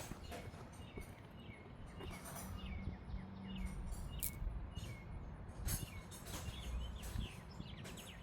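Outdoor background: small birds chirping repeatedly in short falling notes over a faint low rumble.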